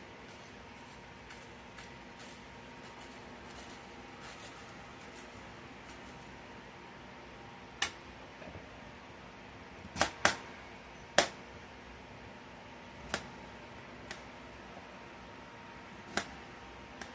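Kitchen knife cutting an acorn squash into wedges on a metal baking sheet: faint cutting and scraping for the first several seconds, then about seven sharp clacks as the blade comes through and strikes the pan.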